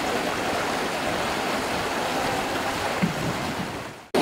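Steady rushing of fast-flowing water in a concrete irrigation canal, cutting off abruptly near the end.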